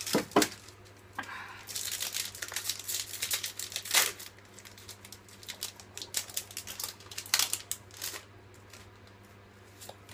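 Foil wrapper of a Pokémon booster pack being torn open and crinkled in the hands, in bursts of crackling. A single knock about half a second in.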